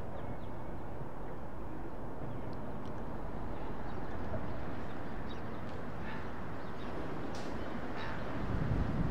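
Outdoor trackside ambience: a steady low rumble with scattered short bird chirps, more of them in the last few seconds.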